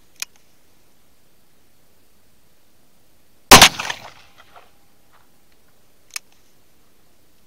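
Smith & Wesson Model 629 Competitor .44 Magnum revolver firing one shot about three and a half seconds in, its report trailing off in echoes for about a second. A sharp click comes just after the start and another about six seconds in: the hammer being cocked for single-action fire.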